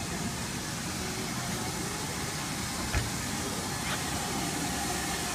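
Steam tank locomotive moving slowly in reverse, with a steady hiss of steam and a single knock about three seconds in.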